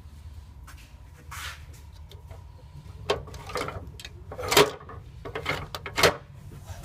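Metal tool box drawers being opened and shut, with a string of knocks and clattering tools; the loudest knocks come about four and a half and six seconds in.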